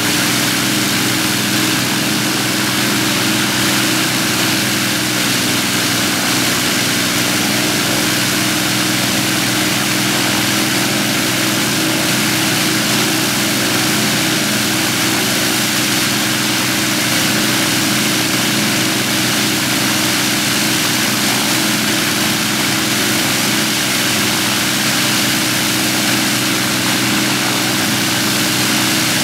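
Avro Lancaster's four Rolls-Royce Merlin V12 engines running together with propellers turning, a loud, steady drone that holds one note throughout.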